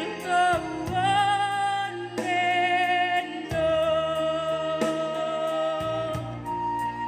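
A young female voice singing long held, wavering notes of a slow pop ballad over a backing track with a stepping bass line and a steady light beat.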